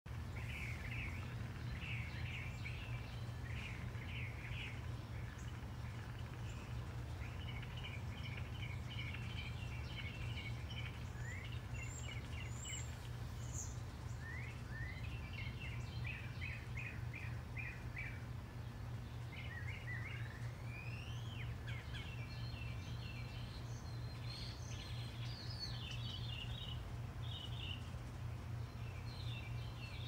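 Male house finch singing: long runs of quick, high warbling notes and rising slurs, with short pauses between phrases, over a steady low hum.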